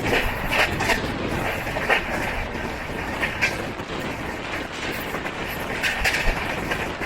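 Passenger train running along the track: a steady rumble and rush with scattered sharp clacks from the wheels and coach.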